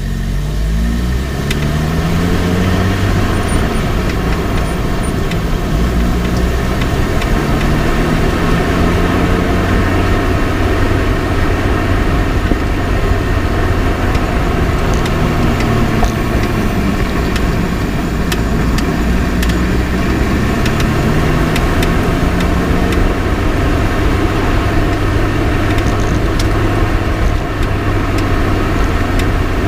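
Lotus Elise on the move, heard from a camera on the front left suspension: steady road and tyre noise with the engine rising and falling in pitch several times as it speeds up and eases off. Occasional sharp clicks come through, the kind of clicking that the owner is trying to trace in the front left suspension.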